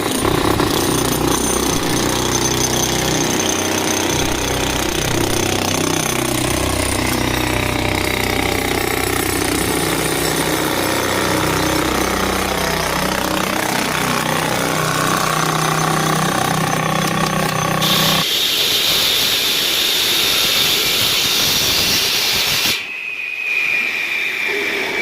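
Heavy concrete-breaking and cutting machinery: a powered breaker hammering over a running engine, then a harsh high hiss of cutting. Near the end the noise cuts off suddenly and a motor whine falls slowly in pitch as the machine winds down.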